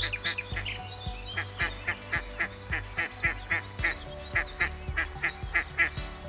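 Birds calling: a rapid, regular series of short calls, about three to four a second, with higher chirps over them.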